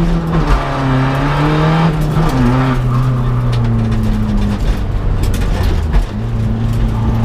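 Seat Ibiza TDI rally car's turbodiesel engine running hard, heard from inside the cabin, its note stepping down about two seconds in and dipping again around five to six seconds in.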